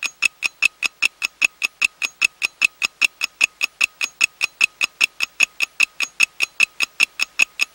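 Rapid, even mechanical clicking, about six clicks a second: a film projector clatter sound effect.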